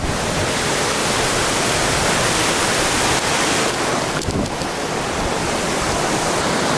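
Large waterfall's falling water making a steady, loud rushing noise.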